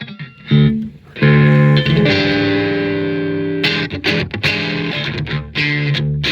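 Electric guitar played through a 1812 Custom Carabinier tube amplifier: a couple of struck chords, then one left to ring for a few seconds, then short choppy chords from a little past halfway.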